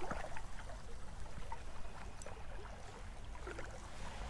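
Steady rush of running creek water, with a few faint ticks over it.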